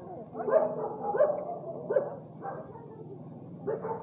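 A dog barking: about five short barks, spaced under a second apart, with a longer pause before the last one near the end.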